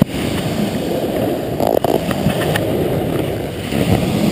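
Cardboard diaper box sliding across the floor, making a continuous scraping rumble with a few light knocks.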